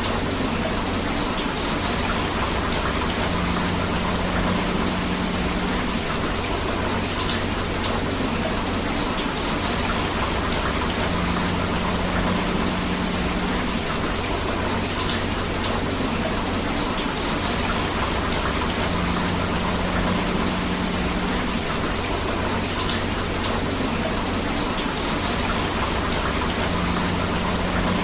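Steady rain and rushing river water, a continuous even hiss. The same faint pattern recurs about every seven and a half seconds, as in a looped recording.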